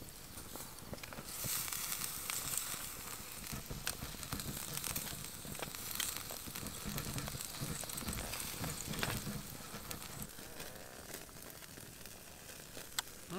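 Food sizzling in a frying pan: a steady hiss with scattered small pops and crackles.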